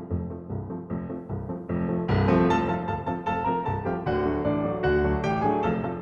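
Background music led by piano, which fills out and grows louder about two seconds in.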